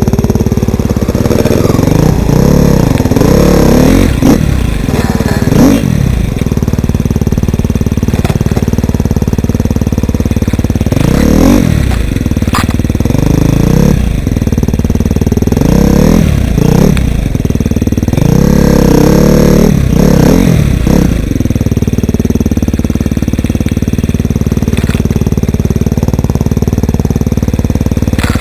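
Dirt bike engine heard close from the bike itself while riding, its pitch rising and falling over and over as the throttle is opened and rolled off, with several hard revs. A few short clatters are mixed in.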